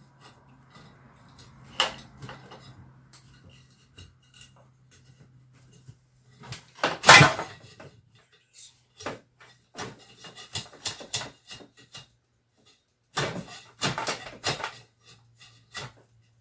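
Scattered clicks and scrapes of a pick tool working at the old cord fittings inside a vintage vacuum cleaner, with a louder scraping run about 7 seconds in and a cluster of clicks near the end. A faint steady low hum sits underneath.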